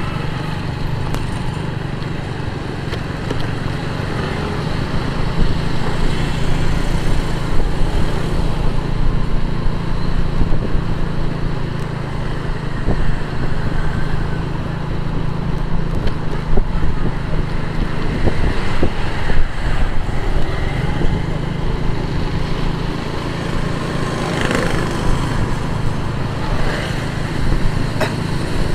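Motorcycle riding through city traffic: the bike's engine runs steadily under wind and road noise, with other vehicles around it.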